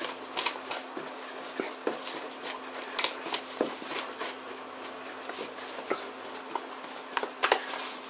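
Paper flour bag crinkling and rustling as whole-wheat flour is shaken out of it into a bowl, with many short irregular crinkles and soft taps. A faint steady hum runs underneath.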